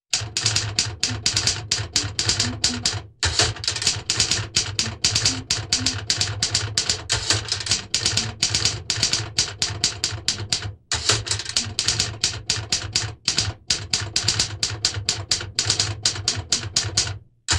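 Typewriter sound effect: a rapid, uneven run of key clacks at about four to five strikes a second, breaking off briefly a few times.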